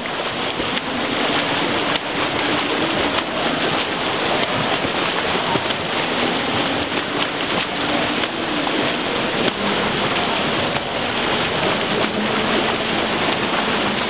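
Swimmers' freestyle strokes splashing and churning the water of an indoor pool: a steady, dense wash of splashing.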